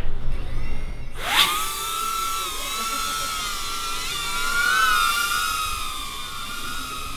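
Small ducted FPV drone's motors spooling up about a second in as it lifts off, then a steady high-pitched propeller whine that wavers in pitch as it flies.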